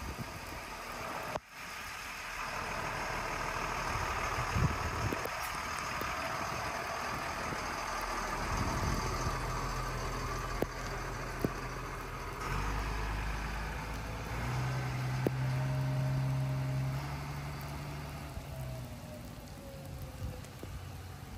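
Rain falling, joined about halfway through by the steady low running of a big high-water rescue truck's engine, which eases off near the end as the truck pulls away.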